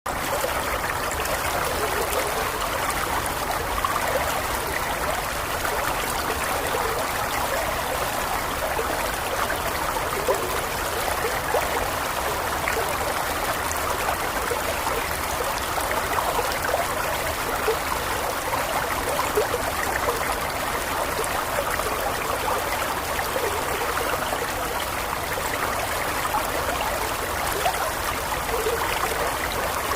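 Running water flowing steadily, a continuous babble with many small splashes and gurgles.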